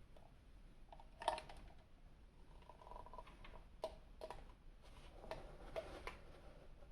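Faint clicks and scraping of a plastic action figure being handled, with the sharpest click about a second in and several smaller ones after.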